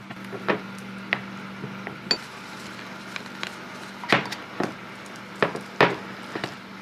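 Spoon clinking and knocking against a bowl while mixing protein powder into microwaved oatmeal: several separate taps, the loudest a little over four seconds in and near six seconds, over a steady low hum.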